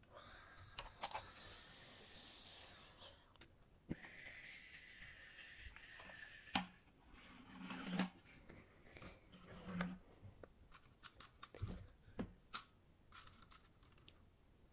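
Plastic toy airplanes handled and pushed across a tabletop: two stretches of a hissing rush a few seconds long, then scattered plastic clicks and knocks, the loudest a couple of sharp knocks in the middle.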